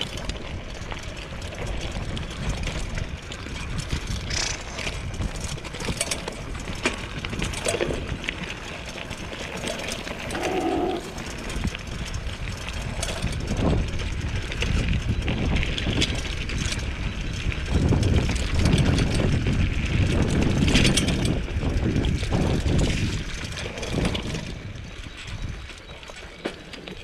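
Mountain bike rolling down a rough dirt and gravel track: the tyres crunch over stones and the bike rattles on the bumps, over a low rumble of wind on the microphone. The noise is loudest a little past the middle, on the bumpiest stretch.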